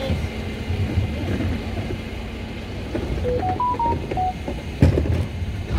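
Refuse truck engine running with a low rumble, with a quick run of five electronic beeps at different pitches about three seconds in and a loud clunk near the end as a wheelie bin is handled.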